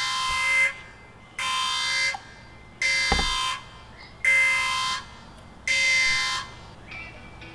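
An electronic alarm beeping five times, each beep about three-quarters of a second long and evenly spaced.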